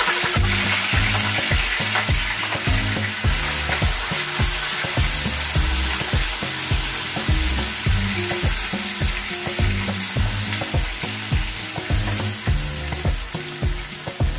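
Cut bacon sizzling steadily in hot cooking oil in a frying pan, with the occasional click of a utensil stirring it against the pan.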